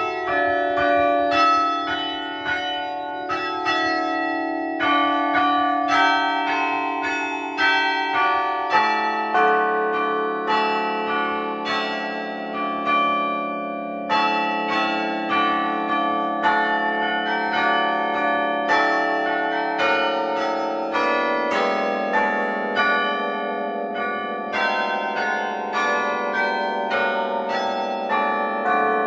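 Church tower bells heard up close inside the bell tower, loud, playing a tune. Strikes come one after another, about one to two a second, and each note rings on under the next so the notes blend.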